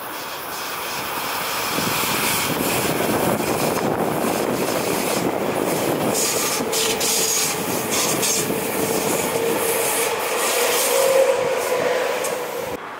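Electric train running past on the rails: wheel and rail noise building over the first two seconds and holding steady, with a faint steady whine in the second half. The sound cuts off suddenly near the end.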